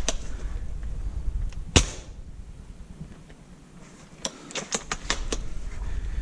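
Airsoft guns firing: one sharp shot about two seconds in, then a quick string of about six shots near the end.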